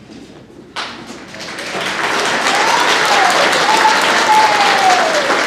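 Auditorium audience applauding, starting suddenly about a second in and swelling into full clapping. Over it come two long, high calls that rise and fall.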